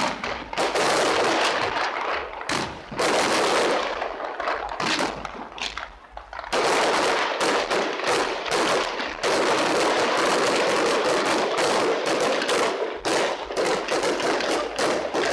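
Fireworks display: rapid, overlapping bangs and crackling from bursting aerial shells. The bangs thin out for a moment about five seconds in, then pick up again into a dense, unbroken barrage.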